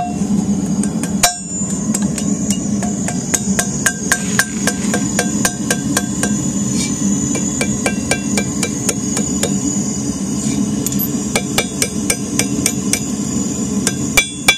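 Blacksmith's hammer striking a small piece of hot 3/16-inch round steel stock on an anvil: quick, light, ringing blows in runs of a few a second, shaping the hook, over a steady low hum.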